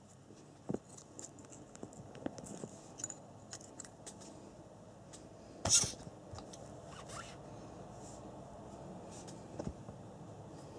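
Handling noise: scattered small clicks and rustles, with one brief, louder scrape about six seconds in.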